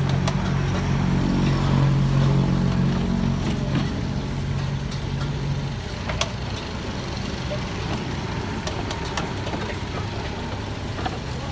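Kubota excavator's diesel engine running, louder and harder for the first five or six seconds and then settling lower. There is a sharp click about six seconds in and a few lighter ones.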